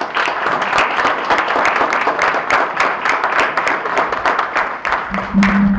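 Audience applauding in a banquet hall, a dense patter of many hands clapping. A low steady hum comes in near the end.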